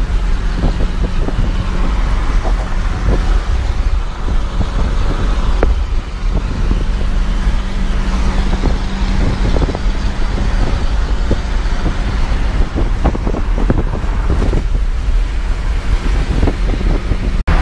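Cab interior of a Hyundai HR light truck cruising at highway speed: steady engine drone and road noise, with small rattles and ticks throughout.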